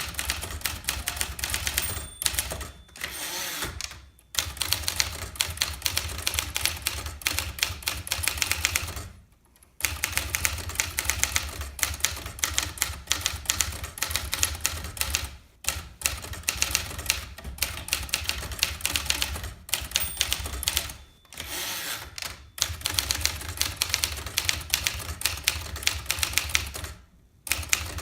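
Remington Quiet-riter manual typewriter being typed on: fast runs of keystrokes clacking, broken by a few short pauses.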